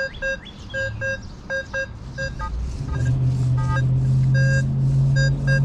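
Nokta Makro Legend metal detector giving a run of short beeps as its coil sweeps over buried targets, mostly at one pitch with a few at a higher pitch. About halfway through, a steady low engine drone comes in and stays louder than the beeps.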